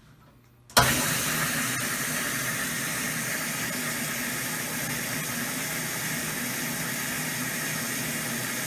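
A high-volume electric fuel pump switches on about a second in. Fuel returning through the stock Mustang hanger's quarter-inch return tube then sprays onto the fuel surface with a steady rushing noise, aerating the fuel in the tank.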